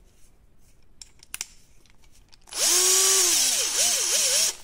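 Bosch GSR 120-LI 12 V cordless drill/driver running with no load for about two seconds, its brushed motor spinning the empty keyless chuck. The pitch climbs, holds, eases off, then rises and falls a couple of times with the trigger before it stops. A couple of light clicks come about a second in.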